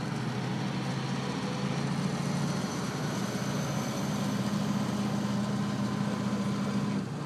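A 1932 REO's engine running steadily as the car drives along, heard from inside the cabin together with road noise. The low hum grows a little louder partway through and eases off just before the end.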